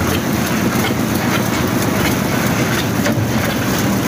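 Drum concrete mixer running: a steady machine drone with irregular clattering from the charge of gravel and concrete tumbling in the turning drum.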